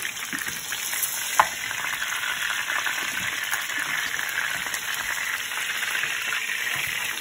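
Rack of lamb searing in oil in a frying pan, sizzling steadily as it is turned with metal tongs, with one sharp click of the tongs against the pan about a second and a half in.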